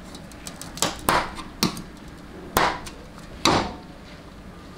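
Screwdriver tip clicking against small steel retaining rings and repair sleeves on a steel transmission separator plate as the rings are pushed into the sleeves' grooves: about five sharp metallic clicks spread over three seconds, the last ones the loudest.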